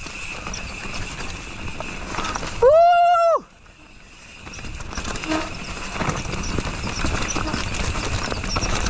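Wind and trail noise from a mountain bike being ridden. About two and a half seconds in there is a loud high-pitched sound that rises, holds and falls, lasting under a second.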